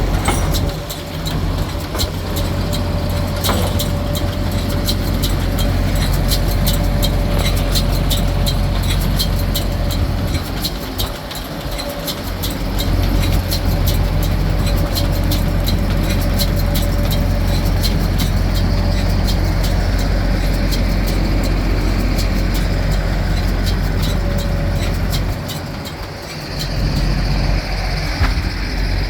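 Tractor diesel engine running steadily, with many sharp clicks and ticks over it and a steady mid-pitched whine that fades near the end.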